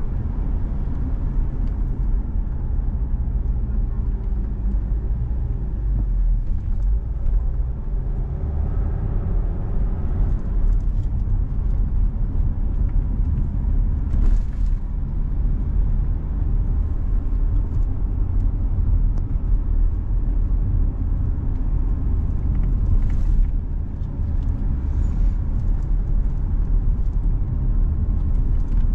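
A car driving: a steady low rumble of engine and tyre noise, with brief hisses about fourteen seconds in and again about twenty-three seconds in.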